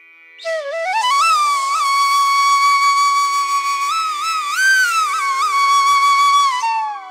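Background instrumental music: a flute melody that climbs in steps, holds a long note with small ornamental turns, and slides down near the end, over a faint steady drone.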